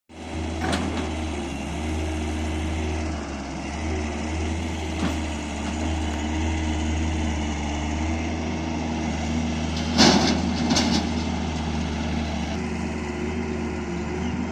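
Excavator and tractor engines running steadily, with a few sharp knocks, the loudest about ten seconds in.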